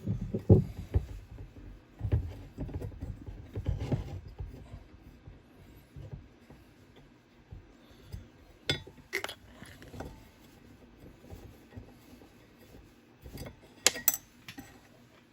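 Small metal parts of a stove fan being handled as its motor is taken out: irregular clinks, taps and knocks, busiest in the first few seconds, with a few sharp clicks later.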